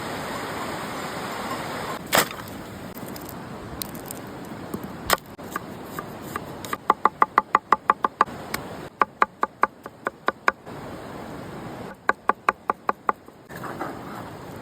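Knife chopping on a cutting board: a couple of single knocks, then three quick runs of sharp, evenly spaced strikes, about seven a second, typical of chopping ingredients for kebab.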